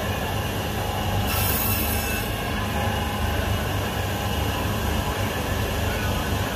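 Electric meat mincer running steadily: a constant low motor hum with a whine over it, and a short hiss about a second and a half in.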